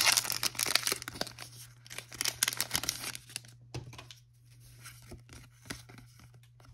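Foil Pokémon booster pack wrapper being torn open and crinkled: dense crackling for about the first three seconds, then fainter rustling as the cards are taken out and handled.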